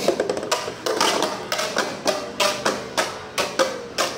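Metal-wheel Beyblade spinning in a plastic stadium, hitting the wall again and again: a quick, uneven run of sharp knocks, a few a second, with a ringing tone between them.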